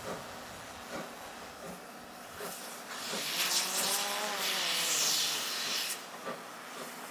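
C11 steam locomotive releasing steam with a loud hiss for about three seconds, starting about three seconds in, over the quieter sound of the train running.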